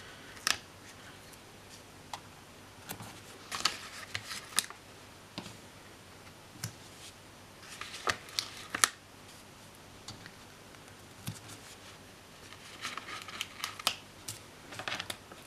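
Scattered light clicks and paper rustles in several short clusters: sticker sheets being handled and small stickers peeled off and pressed onto planner pages.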